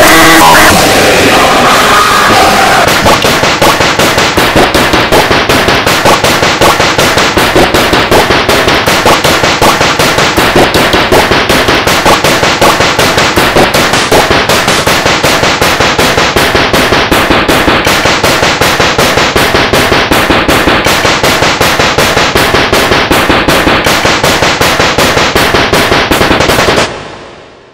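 A very loud, distorted YTPMV remix built from a sneeze sample chopped and repeated in a fast, relentless stutter, like rapid fire. It drops away and fades out suddenly near the end.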